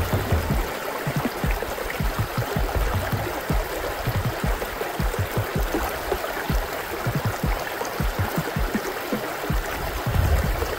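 Shallow stream water running and splashing over stones, mixed with background music that swells with a deeper pitched part about ten seconds in.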